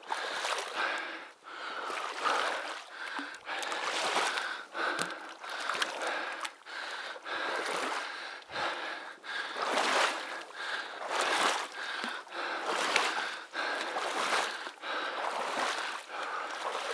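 Water sloshing and swishing in regular surges, about one a second, as a person wades waist-deep through a marsh in waders.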